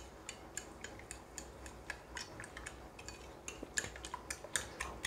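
Metal fork clicking and scraping against a ceramic plate as sugar is beaten into eggs: a faint string of light, irregular clicks.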